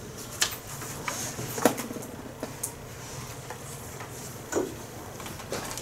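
Quiet room tone with a few scattered short knocks and clicks, the loudest about two seconds in.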